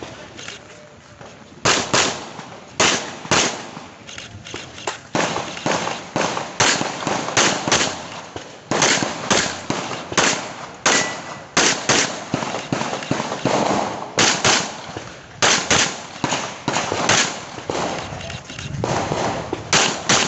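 Handgun shots fired mostly in quick pairs (double taps), in strings broken by short pauses, during a timed IPSC practical-shooting stage.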